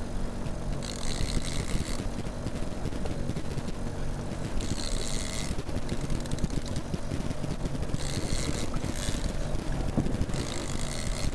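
Fishing boat's outboard motor running steadily at trolling speed, with wind and water noise; a short hiss comes back every three to four seconds.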